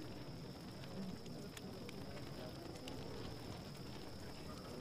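Faint night ambience: soft, scattered crackles from a small campfire over a low hiss and a steady high-pitched hum.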